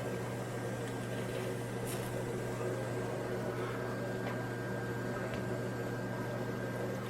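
Steady low hum of a running appliance, with a thin steady high tone above it and a few faint small clicks.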